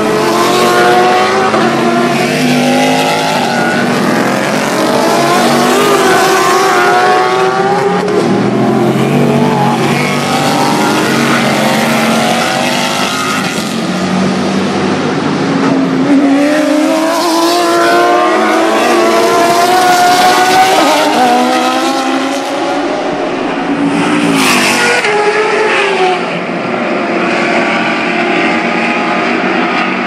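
Loud engines of several Grand-Am sports racing cars overlapping, their notes falling and rising again and again as the cars slow for the corners and accelerate away.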